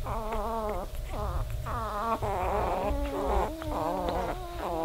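Newborn Weimaraner puppies whimpering: a continuous run of overlapping, wavering whiny cries.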